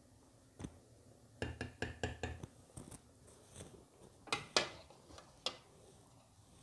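Kitchen utensils and dishware being handled: a scattered string of clinks and knocks, with a quick run of them between about one and a half and two and a half seconds in and the loudest at about four and a half seconds.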